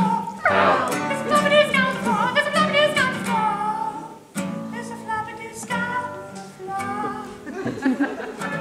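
Nylon-string classical guitar strummed with a male voice singing over it, with a short break about four seconds in before the playing and singing resume.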